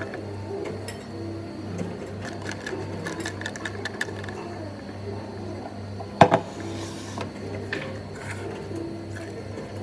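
Light clicks and taps of a plastic straw stirring strawberries and milk in a glass, over a steady, rhythmically pulsing low hum. About six seconds in, a sharp knock with a short ring as something hard is set down on the counter.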